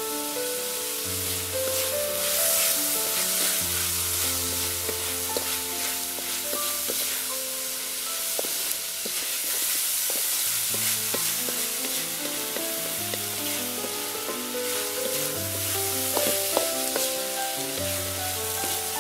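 Corn kernels and shrimp sizzling as they stir-fry in a wok, with a wooden spatula stirring and scraping through them in short clicks. Background music with held notes and a bass line plays underneath.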